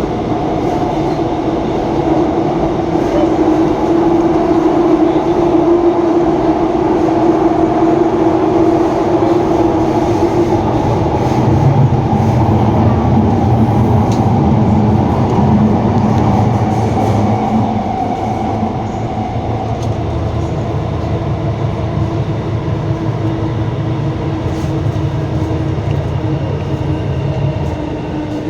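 Alstom Movia R151 metro train running between stations, heard from inside the car: continuous wheel and track rumble with the steady whine of its electric traction motors. The motor tone shifts and falls slightly past the middle, and the sound eases off a little toward the end.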